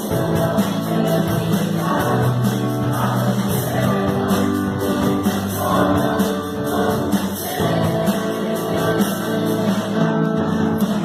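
Live Christian worship music from a choir and band, with guitar and singing.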